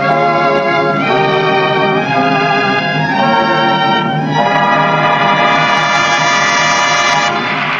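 Orchestral dance music with long held chords that change about once a second, ending on a sustained final chord that stops just before the end, where applause begins.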